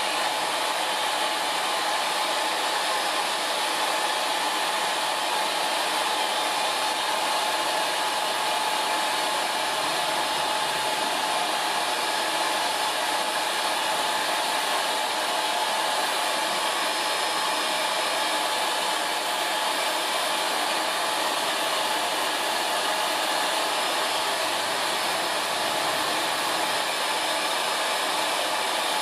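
TF-1408 pet hair dryer blowing steadily into a poodle's coat: an even rush of air with a faint whine held on one pitch.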